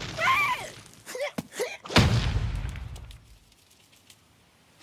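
Cartoon slapstick sound effects: a short wavering cry from a character and a few quick chirps, then a loud crash about two seconds in with a deep rumble that fades out over about a second and a half.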